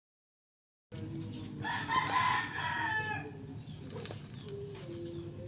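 A rooster crowing once, one call of about a second and a half that drops in pitch at the end, over a low steady background.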